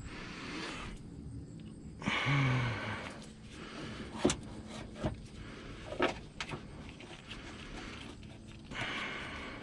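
A car body panel being handled and pushed back into place: scraping, with sharp clicks about four and six seconds in.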